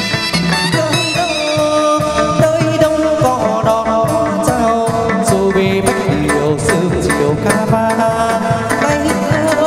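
Chầu văn ritual music: a melodic line sliding between notes over a steady, busy percussion beat, with hands clapping along in time.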